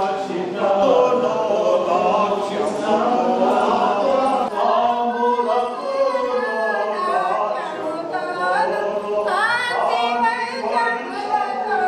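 A group of voices singing together without instruments.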